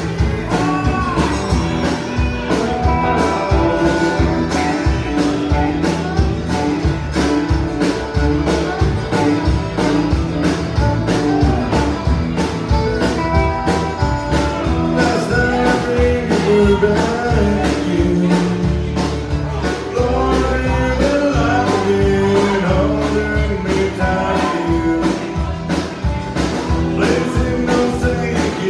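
Live country band playing: electric and acoustic guitars, fiddle and drums, with a steady beat.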